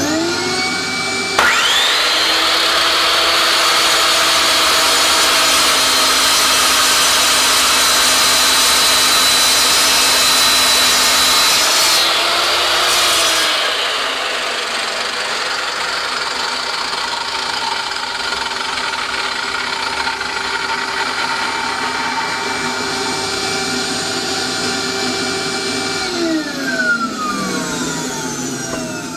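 Erbauer mitre saw, its gearbox just repaired, starting up and running with a steady high whine while the blade is brought down through a block of hardwood; near the end the motor winds down with a falling whine. A shop vacuum hooked to the saw runs underneath throughout.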